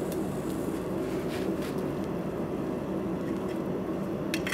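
Steady mechanical drone of the forge shop while a hot bar is twisted in a leg vise, with a few sharp metallic clinks near the end as the twisting wrench comes off the bar.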